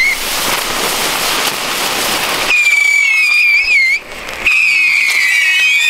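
Chifladores (small whistling ground fireworks) burning in a chain: first a loud hissing rush of sparks, then from about two and a half seconds in several high whistles at once, wavering and sliding slowly down in pitch, with a brief dip near four seconds.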